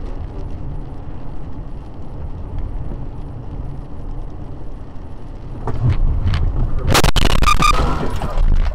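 Steady rumble of a car driving, heard from inside the cabin. About seven seconds in comes a loud car crash as the car strikes the side of an SUV, with crunching and ringing for a second or so after the impact.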